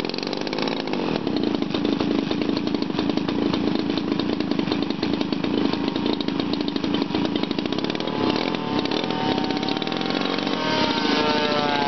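Small model-aircraft engine running with a fast, buzzing rattle. About nine seconds in, a higher engine note comes in and wavers up and down in pitch.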